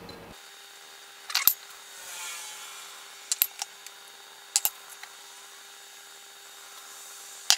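Small glass and ceramic bowls being handled and set down upside down on a countertop: a few short knocks and clinks, one about a second and a half in, a pair at about three and a half seconds, another near four and a half, and the sharpest near the end, with a soft rustle in between.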